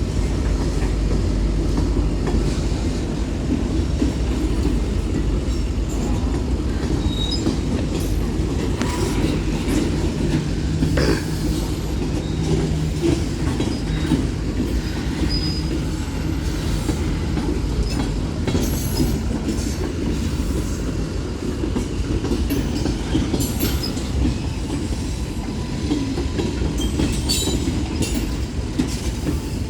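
Union Pacific manifest freight train's cars rolling past: a steady rumble of steel wheels on rail, with scattered clicks over the rail joints and a few brief, faint wheel squeals.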